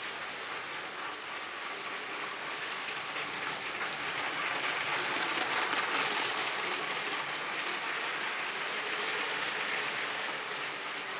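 Motorised Lego train running on plastic track, a whirring, clattering hiss of motor and wheels that grows louder as the train passes close by about six seconds in, then fades.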